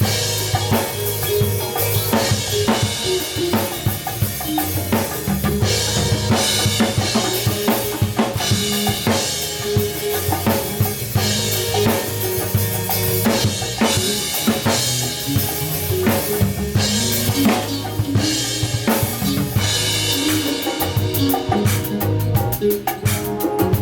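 Drum kit playing a steady groove of kick, snare and cymbals over sustained low bass notes, as a band plays through a sound check. Near the end comes a fast run of even drum hits.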